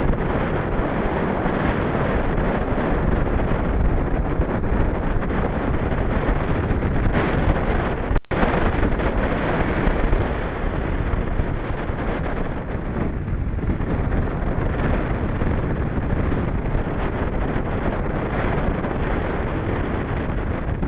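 Wind buffeting the microphone of a camera on a moving bicycle: a steady rushing noise, strongest in the low end, cut by a brief dropout about eight seconds in.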